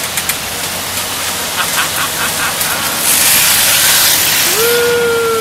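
Double Ferris wheel ride running, with a short run of light clicks, then a loud hiss about three seconds in that lasts about two seconds. Near the end a rider lets out a long whoop that slowly falls in pitch.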